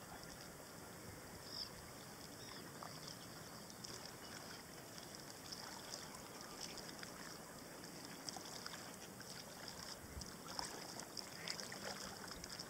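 Faint river-water lapping with small scattered splashes from a kayak paddle dipping at a distance.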